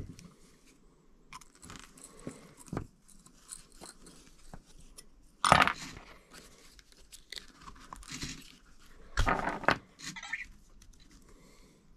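Small RC drivetrain parts being handled and worked at a bench: scattered clicks, taps and scrapes of plastic and metal pieces, with two louder crunchy clatters, about five and a half and nine seconds in.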